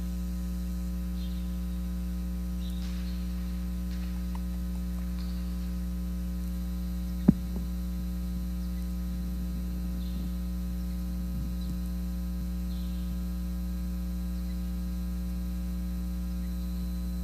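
Steady electrical mains hum with many evenly spaced overtones, picked up on a corded handheld microphone's line. The owner suspects the microphone cable and later finds the cord too crinkled up. A single sharp click cuts through it about seven seconds in.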